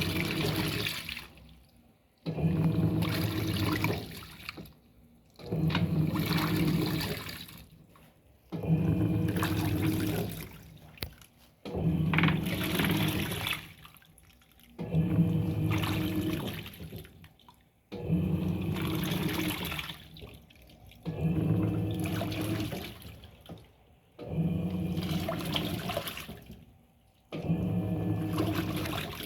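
Electrolux Turbo Economia LTD06 top-load washing machine agitating a load: the motor hums and water sloshes in strokes of about two seconds, each followed by a brief pause, about every three seconds.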